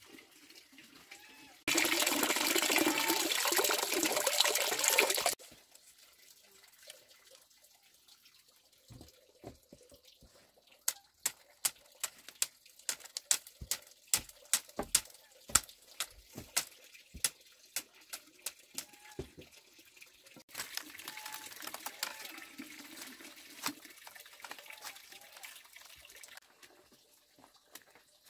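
Machete chopping bamboo slats: a run of sharp strikes, roughly three a second, lasting about nine seconds in the middle. Near the start a loud stretch of steady rushing, water-like noise lasts about four seconds, a softer stretch of the same noise comes later, and faint bird chirps sound in the quieter gaps.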